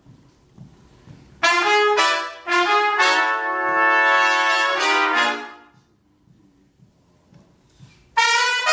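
A big band section of trumpets and trombones playing together. A phrase of several punchy attacks and held notes starts about a second and a half in and dies away around five and a half seconds. After a short pause, a loud new entry comes near the end.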